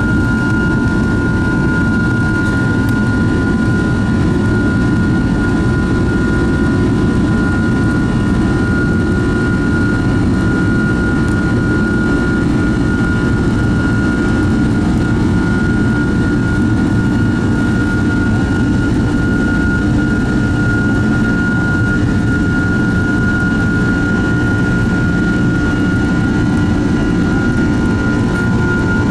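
Boeing 767-300's Rolls-Royce RB211 jet engines at takeoff thrust, heard from inside the cabin during the takeoff roll: a loud, steady deep rumble with a steady high whine over it.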